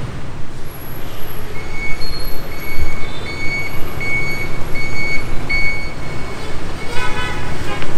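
Street traffic running with a steady rumble, while an electronic beep repeats over and over at one pitch, a little more than once a second. A horn sounds near the end.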